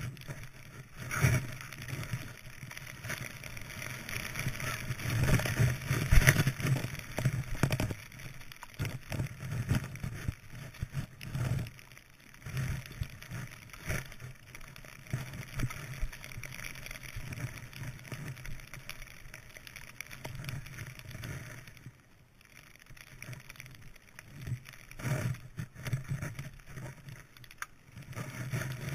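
Skis hissing through deep powder snow, with the rush of air over a moving camera's microphone and irregular thumps and bumps as the skier turns. The sound dips briefly about two-thirds of the way through.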